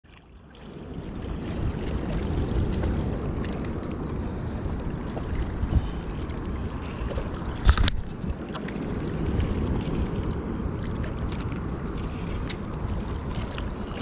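Wind buffeting the microphone over water lapping against a riprap river bank, with scattered light knocks and one sharper knock about eight seconds in.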